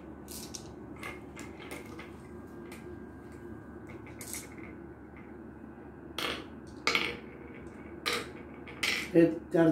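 Glass marbles dropped one at a time into the pits of a wooden Gurpale (mancala) board, each landing with a short click against the wood and the other marbles. About ten clicks, irregularly spaced, the louder ones in the second half.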